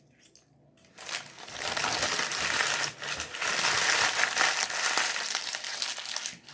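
Paper food packaging crinkling and being crumpled for several seconds, starting about a second in.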